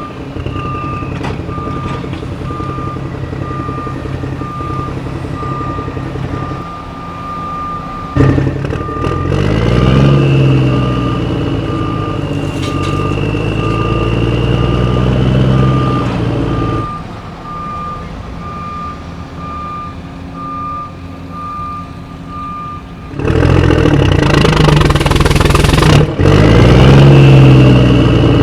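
A vehicle's reversing alarm beeps steadily over a running engine. About a third of the way in the engine revs up, holds, then drops back. The beeping stops near the end, and the engine runs louder and revs again.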